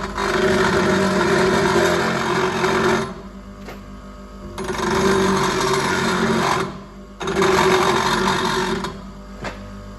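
Bench grinder running steadily, with three bouts of loud grinding as the steel edge of a hydraulic ram is pressed against the wheel to shave a little off it. The bouts last about three seconds, two seconds and a little under two seconds, and the motor hums on in the gaps between them.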